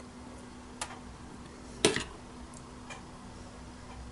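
A metal spoon tapping and scraping on tortilla chips in a foam tray while spreading sauce: a few sparse clicks, the loudest a little before two seconds in.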